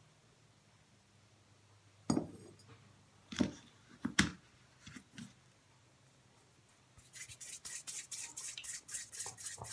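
A few sharp knocks as the metal bathtub drain flange is handled and set down, then from about seven seconds in a fast rubbing, about four or five strokes a second, of palms rolling plumber's putty into a ball.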